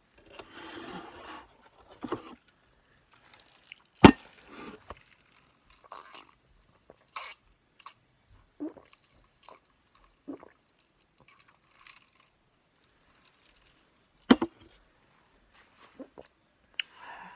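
A person eating close to the microphone: chewing and crunching corn chips with chili, and a sip from a cup of soda. Two sharp knocks, about four seconds in and again some ten seconds later, are the loudest sounds.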